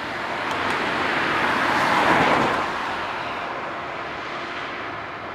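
A car passing by on a street: the rush of its noise grows louder to a peak about two seconds in, then fades away over a steady background of traffic.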